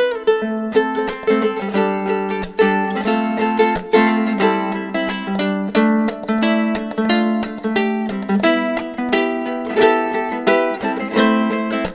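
Background music: a bright tune on a plucked string instrument, with quick, evenly spaced notes.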